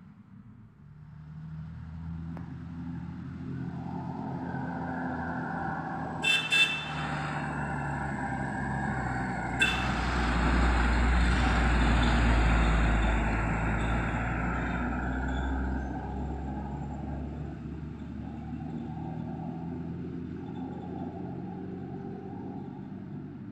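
Diesel engine of a heavy Tata tanker truck passing close by together with an SUV, growing louder to a peak and then falling away. A few short horn toots sound about six seconds in and one more near ten seconds. A more distant vehicle's engine keeps up a steady drone afterwards.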